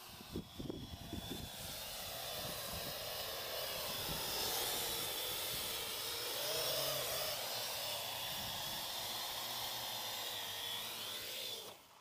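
Parrot AR.Drone quadcopter's four electric motors and propellers buzzing in flight, the pitch wavering as it manoeuvres, with a few low thumps in the first second. The buzz cuts off suddenly near the end as the drone lands and its motors stop.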